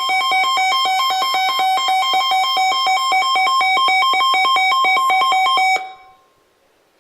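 Electronic emergency alert tone: a loud stream of rapid high beeps, about eight a second, with several pitches switching on and off in a pattern. It cuts off suddenly about six seconds in.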